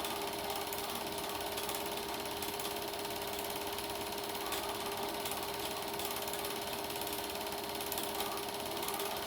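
Super 8 film projector running: a steady, fast mechanical clatter from the film transport, with a constant hum under it.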